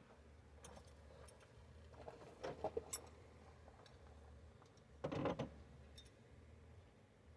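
Wrench and hand tools clicking against metal. A few light clicks come about two and a half seconds in, then a louder burst of rapid clicks about five seconds in, over a faint low hum.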